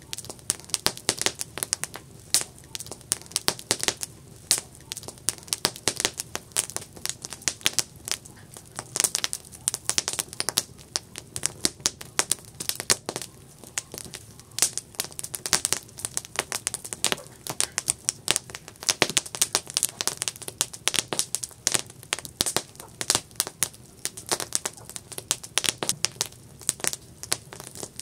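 Campfire of burning wood crackling steadily, with dense irregular sharp pops and snaps over a low, soft rush of flame.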